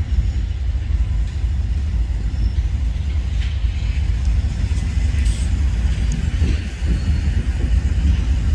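Steady low rumble of Florida East Coast diesel-electric locomotives running in the rail yard as one unit moves slowly along the tracks.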